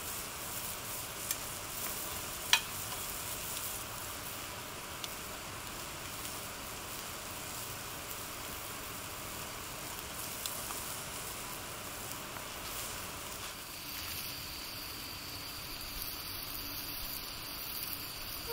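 A small wood fire burning in a campfire grill: a steady hiss with a few sharp pops, the loudest a little over two seconds in. A thin steady high tone comes in about three-quarters of the way through.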